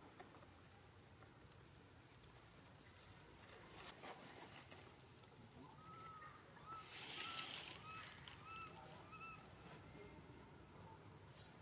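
Quiet outdoor ambience with a faint series of about seven short chirps, each rising and falling in pitch, about two a second, over a few seconds past the middle, with a brief hiss among them.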